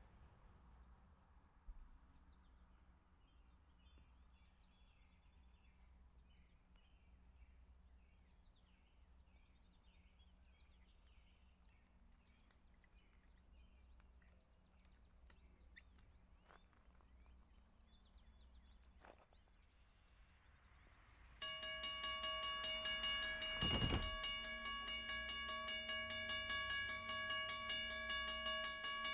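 Faint birdsong and a low rumble, then, about two-thirds of the way in, a railroad bell suddenly starts ringing steadily and much louder, with one short burst of noise a couple of seconds after it starts.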